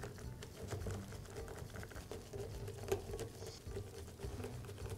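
Faint, irregular ticking and light scraping of a hand screwdriver turning small screws into a reciprocating saw's metal gear housing, with one sharper click about three seconds in.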